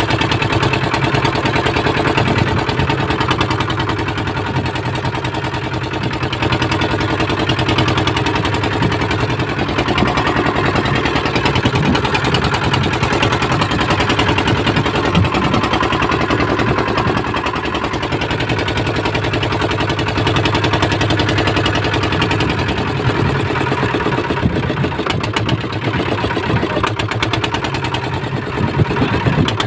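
Small wooden fishing boat's engine running steadily, with a rapid, even beat.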